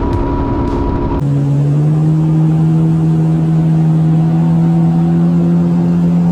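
Personal watercraft engine running at a steady speed, a constant droning note with no rise or fall in pitch. It comes in abruptly about a second in, replacing music.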